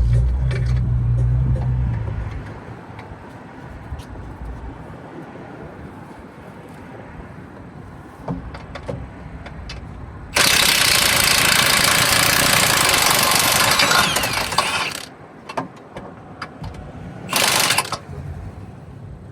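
An engine running that stops about two seconds in. About ten seconds in, a loud, steady hiss starts suddenly and lasts about four seconds, like a blast of air, with a shorter hiss near the end.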